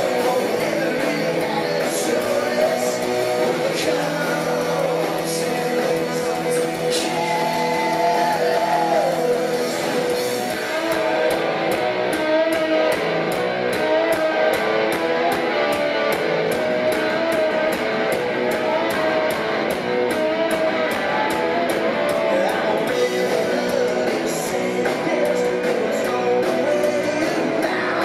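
Live rock band playing loud: electric guitar and singing over bass and drums. A fast, even beat comes in about eleven seconds in.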